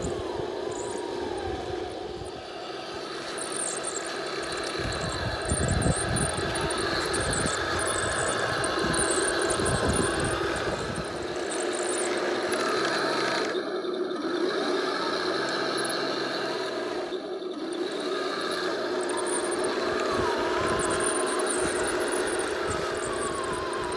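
Heng Long 1/16-scale RC T-90 tank running: a steady mechanical hum, with a whine from its electric drive motors and gearboxes that wavers in pitch as it drives and turns. The sound briefly breaks off twice in the second half.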